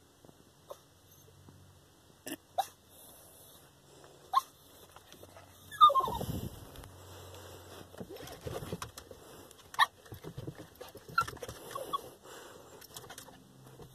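Small Pomeranian-type dog whimpering in short high cries, with one louder whine about six seconds in that slides down in pitch: the anxious whining of a dog left behind when its person walks away.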